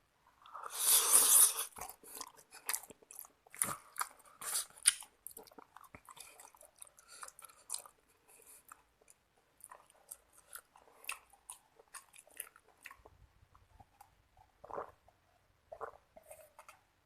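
A person eating seblak close to the microphone: a loud, noisy mouthful about a second in, then wet chewing with many small smacking clicks that grow sparser later.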